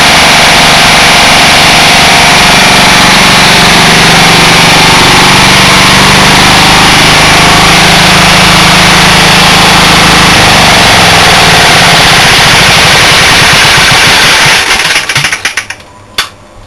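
Lombardini LD325 single-cylinder air-cooled diesel engine of a generator running loud, with only a resonator in place of a muffler. About two seconds before the end it is shut off and knocks a few more times, further and further apart, as it slows to a stop.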